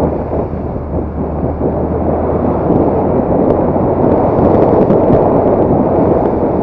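Riding motorcycle: wind rushing over the microphone with the engine running underneath. A steady low hum is heard for the first couple of seconds and then drops away.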